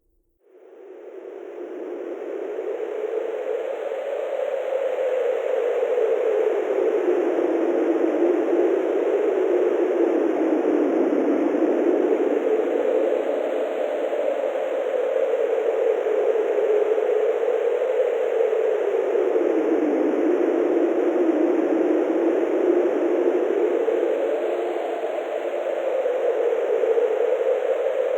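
Wind sound effect: a steady rush of blowing wind that fades in over the first two seconds, its pitch slowly rising and falling as it gusts.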